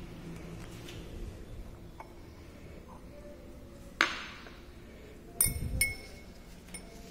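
Porcelain mortar and pestle clinking. There is one sharp clink with a short ring about four seconds in, then a quick cluster of ringing clinks with a dull knock about a second and a half later.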